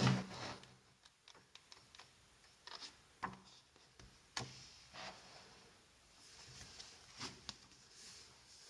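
Pages of a softcover book being turned by hand: a loud paper swish at the start, then scattered soft rustles, flaps and light taps as the last pages are flipped and the book is closed and turned to its cover.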